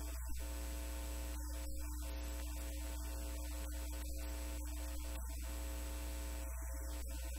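Steady electrical mains hum with an even hiss, unchanging throughout.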